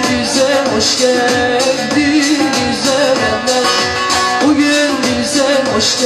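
A woman singing live while strumming a long-necked bağlama (saz), the voice carrying a wavering melody over quick, steady strokes on the strings.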